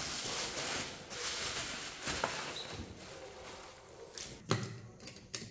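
Rustling and handling noises as a plastic motorcycle top box and its packaging are moved about, with a few sharp knocks near the end.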